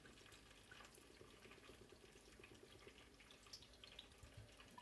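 Vegetable oil poured into a heated cooking pot, a faint steady trickle with small drips.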